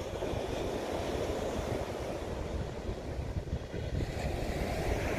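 Wind blowing across the microphone in a steady, gusty rumble, over the wash of small waves breaking on a shingle beach.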